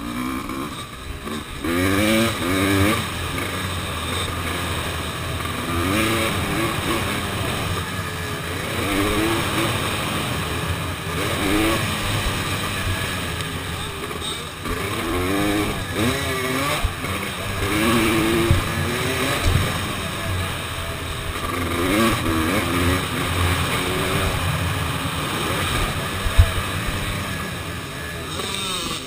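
Dirt bike engine heard onboard, revving up and easing off over and over as the rider accelerates and shifts through the gears, with the pitch climbing in repeated sweeps. A single sharp knock stands out near the end.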